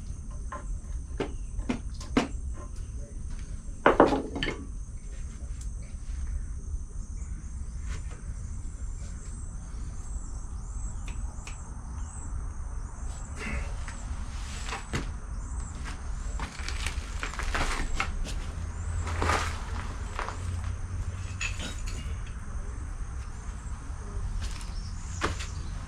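Insects chirping steadily in a high, even pulse, over scattered knocks and clatter from handling things, with a louder knock about four seconds in.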